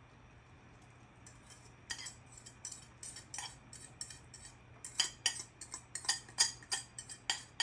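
Metal spoon clinking and scraping against cookware as a beaten egg mixture is poured and worked into a pan of ghee. A few scattered clicks at first, then quicker runs of clinks in the second half.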